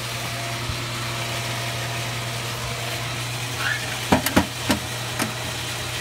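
Pool pump motor running with a steady low hum, with a few sharp clicks and knocks about four seconds in and one more shortly after.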